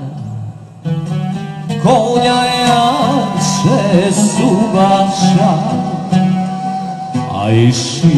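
Live Bosnian sevdalinka: a man sings long, ornamented phrases with wavering pitch over a plucked-string accompaniment. The music dips briefly just under a second in, then comes back in full.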